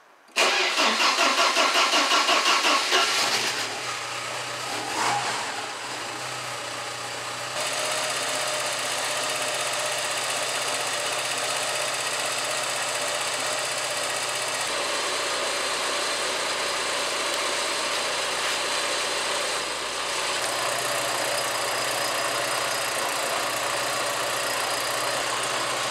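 Porsche 944 inline-four engine cranked by the starter for about three seconds, then running and idling steadily. This is the test run after new fuel lines were fitted, with the fuel system refilled.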